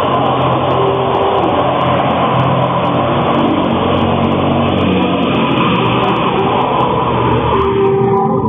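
Motor vehicle engine running steadily close by, a loud even noise, with music faintly beneath it; it fades out near the end as the music comes forward.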